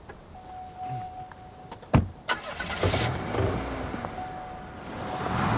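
A sharp knock about two seconds in, a second one just after, then a vehicle engine starting and running. Background music swells in near the end.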